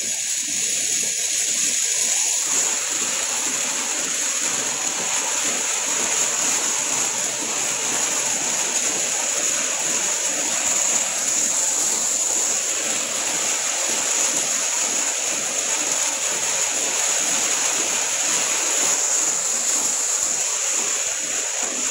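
Steady rushing hiss inside a car's cabin, even and unbroken throughout.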